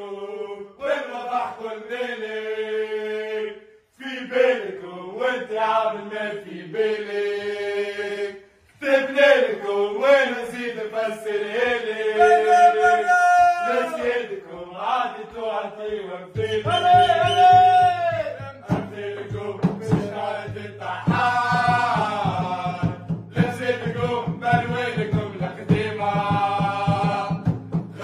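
Football club song sung as a vocal chant, unaccompanied at first, with a steady drum beat coming in a little past halfway.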